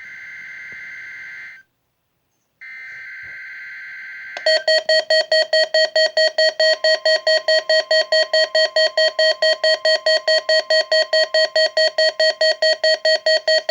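NOAA Weather Radio test signal: two buzzy digital SAME header bursts with a gap of about a second between them. About four seconds in, a weather-radio receiver's alarm starts beeping rapidly, about four beeps a second, and from about six and a half seconds a faint steady warning tone sounds underneath.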